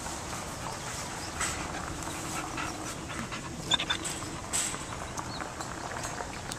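Two dogs panting as they play together, with a few short scuffs and clicks; the sharpest comes a little past halfway.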